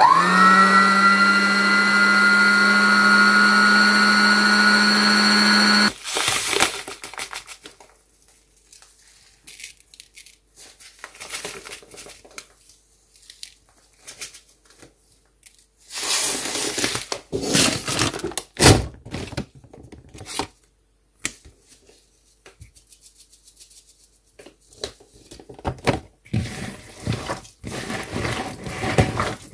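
Electric meat grinder mincing fish fillet: its motor spins up with a rising whine, runs steadily for about six seconds, then cuts off abruptly. After it come scattered rustling, knocks and a sharp click as a packet is handled and ingredients are worked by hand in a plastic bowl.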